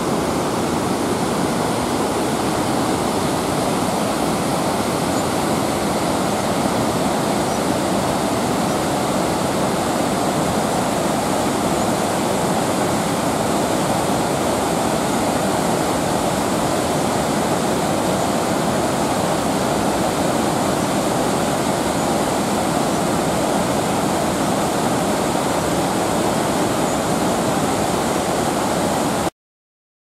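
Steady rushing of white-water river rapids and Naena Falls upstream: a dense, even noise of falling and tumbling water. It cuts off suddenly near the end.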